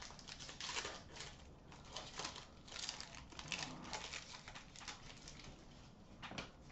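Upper Deck SP Authentic hockey trading cards being flipped through by hand: quiet, irregular papery flicks and slides of card stock against card stock.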